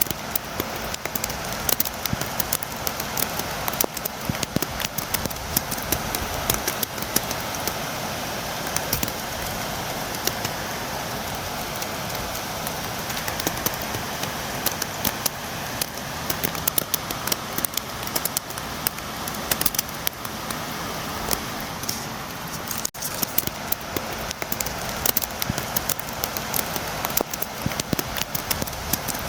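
Steady rain with many sharp drops tapping against a window pane. The sound drops out for an instant once, about two-thirds of the way through.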